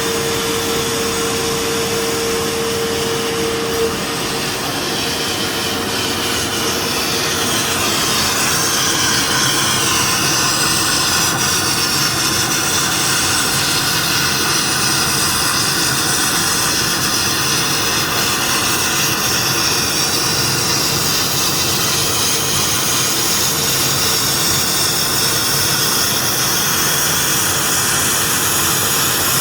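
Automatic sandblasting machine running: a steady loud rush of compressed air and abrasive. A steady hum-like tone stops about four seconds in, and the noise grows louder around eight seconds in.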